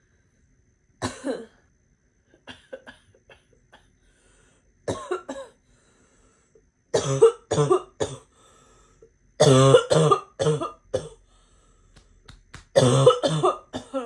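A girl's barking cough fit: harsh, barking coughs come in repeated bursts of two to five, with short pauses and faint small coughs or breaths between them.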